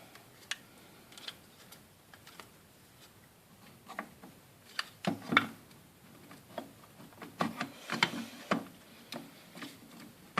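Irregular clicks, knocks and rattles of a three-phase plug and its cable being handled and pushed into a socket. The knocks bunch up about halfway through and again near the end.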